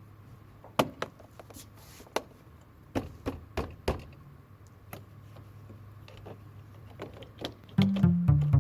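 Scattered light knocks and clicks, about ten over several seconds, over a faint steady low hum. Music with a bass line comes in near the end.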